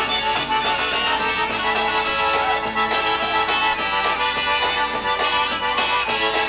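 Polka band playing an instrumental passage led by accordion, with a steady beat.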